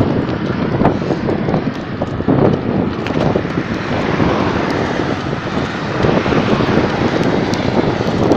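Wind rushing over a phone microphone carried on a bicycle ridden at speed: a loud, steady rush that swells and dips.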